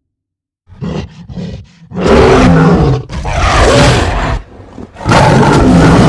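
King Kong giant-gorilla roar sound effects: a few short grunts, then three long, loud roars one after another.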